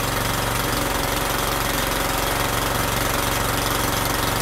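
Honda GX160 single-cylinder four-stroke generator engine running steadily under a load of about 500 watts, its exhaust routed through a GEET reactor.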